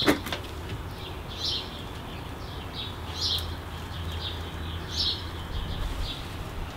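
A sharp knock of wood right at the start as a floorboard is worked loose, then short high chirps repeating irregularly about once a second from a small animal.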